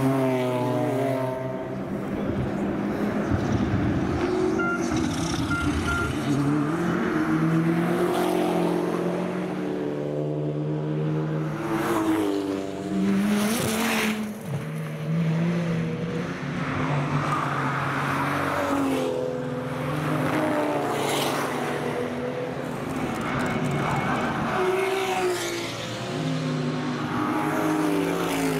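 Racing car engines at high revs on track, repeatedly climbing in pitch and dropping at each gear change, with several cars sweeping past.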